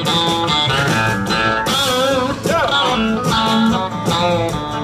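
Live country band playing an instrumental passage after a sung line: a lap steel guitar plays sliding, wavering notes about two seconds in, over upright bass, drums and acoustic guitar.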